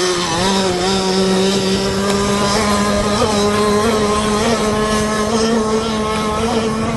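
Two-stroke gas engine of an RC speedboat, a Trevor Simpson reed-case bottom end with a standard Zenoah top end, running at speed across the water. It holds a steady high note with a few brief wobbles in pitch.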